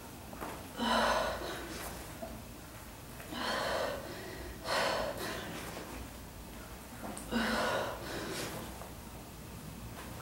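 A woman's heavy breathing while exercising hard, with four loud, forceful breaths a couple of seconds apart.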